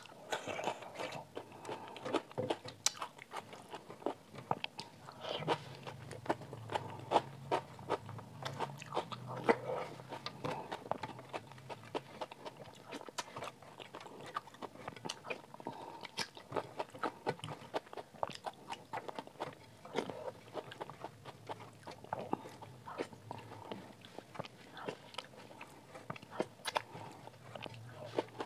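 Close-miked eating of dal and rice by hand: wet chewing and mouth smacks, with fingers mixing the food on a steel plate. Many short, sharp clicks throughout.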